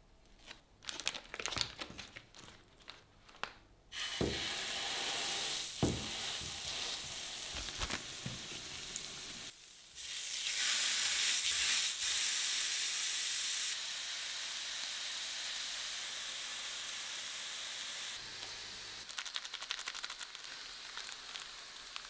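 Burger patties sizzling on a hot electric grill pan, starting about four seconds in after some handling clicks, with a few thuds as patties are laid down. The sizzle is loudest for a few seconds while a patty is pressed with a spatula, then goes on more steadily. There is clicking and handling near the end.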